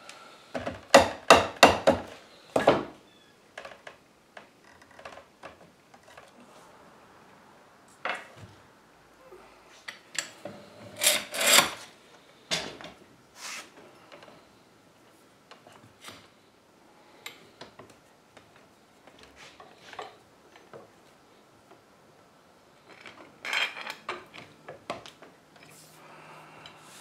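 Hammer knocking glued joints of a wooden chair frame home, a quick run of sharp strikes about a second in, with further clusters of knocks later. Between them, lighter clicks and metal clanks of iron pipe clamps being fitted and tightened on the frame.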